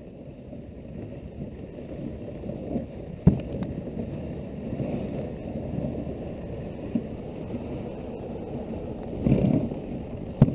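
Dog sled running along a packed snow trail: a steady rushing of the runners over the snow that grows louder over the first few seconds, with two sharp knocks about three seconds in and near the end.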